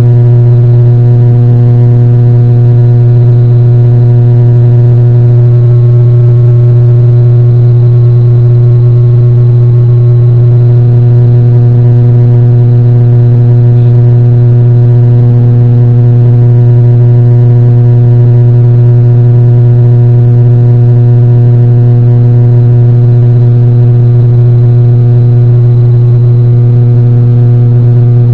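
Quadcopter drone's motors and propellers humming at a steady pitch, with no rise or fall.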